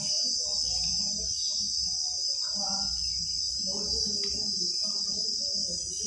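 Steady, high-pitched chirring of insects such as crickets, over a fainter, lower pitched sound.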